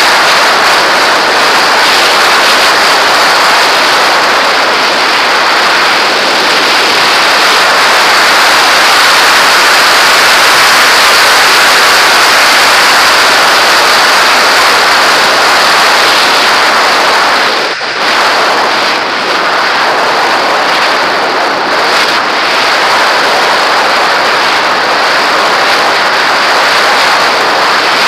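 Airflow rushing past an onboard camera on a model aircraft in fast flight: a loud, steady rush with a constant high tone over it. The rush drops out for a moment about 18 seconds in and dips again a few seconds later.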